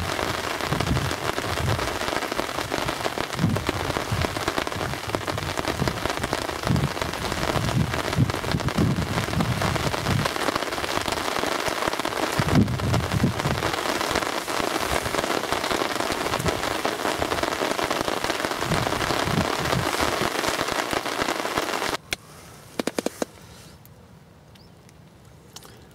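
Heavy rain hammering down on a fishing umbrella canopy and the river surface: a dense, loud hiss with irregular low rumbles of wind beneath it. About 22 seconds in it cuts off abruptly to a much quieter, calm background with a few faint clicks, as the rain stops.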